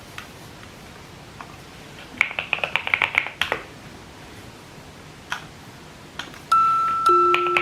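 A quick flurry of light clicks and clinks from small hard objects about two seconds in. Near the end, bell-like music with mallet-percussion notes begins and rings on as the loudest sound.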